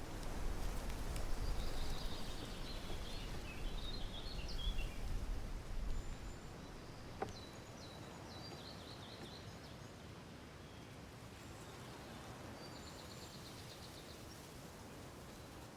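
Birds chirping in the background, with short high trills scattered through, over low rumbling noise that dies away about six seconds in; a single sharp click partway through.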